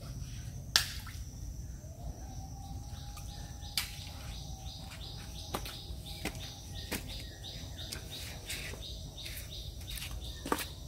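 Outdoor insect and bird chorus: a steady high buzz with rapid repeated short chirps. A few sharp clicks break in, the loudest about a second in.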